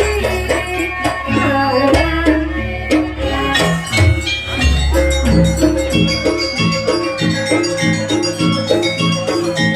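Live Javanese jaranan music: hand drums and tuned gong-chime percussion playing a quick repeating pattern over deep gong tones, which drop out about seven seconds in.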